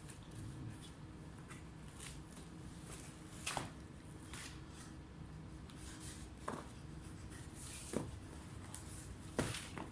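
Hands handling a laptop and small tools, with soft rustling and four sharp clicks or taps spread through, the last the loudest.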